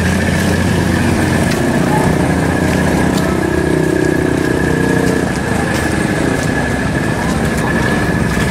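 A vehicle engine running steadily at idle, with a steady high-pitched whine over it and a slight drop in level about five seconds in.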